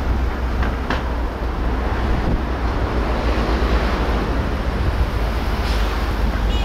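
Wind rumbling steadily on the microphone of a camera mounted outside a moving car, over road and traffic noise.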